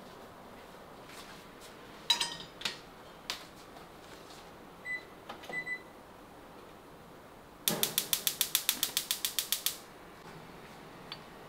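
Kitchen sounds: a ringing clink, then two short high-pitched beeps, then a rapid, even run of about twenty sharp clicks lasting about two seconds.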